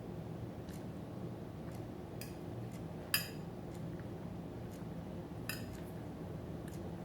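An eating utensil clinks against a dish a few times. The loudest, ringing clink comes a little over three seconds in, with lighter ones about a second before and two seconds after.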